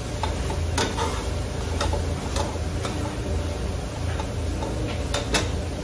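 A metal slotted spoon stirring masala in a large aluminium pot, clinking and scraping against the pot's side at irregular intervals, with two sharp clinks close together near the end, over a steady low hum.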